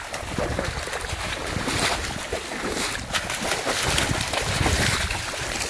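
Wind buffeting the microphone over repeated splashing, as a person and a dog wade through shallow flooded marsh water.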